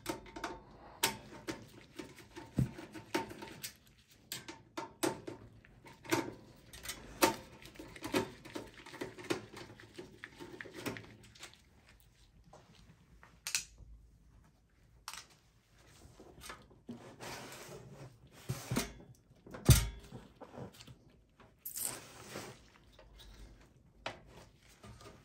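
Clicks, taps and knocks of a screwdriver and gloved hands working on a bare steel desktop PC chassis while the front USB and audio panel is worked free. The taps are thickest in the first half, and a heavier knock about twenty seconds in is the loudest.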